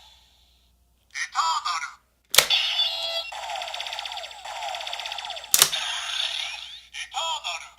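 CSM Lost Driver toy belt playing electronic sound effects through its small speaker: a short warbling chirp, then a long stretch of rapid pulsing tones, broken by two sharp plastic clicks from the belt being worked.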